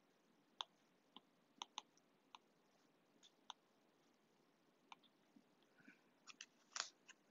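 Faint, irregular clicks of a stylus tip tapping on a tablet's glass screen while a graph is drawn by hand, a dozen or so scattered through otherwise near silence.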